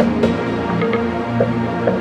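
Background music: held notes over a regular beat.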